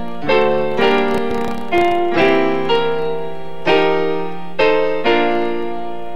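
Closing music: slow piano-like keyboard chords, each struck and left to ring and fade, a new chord every half second to a second or so.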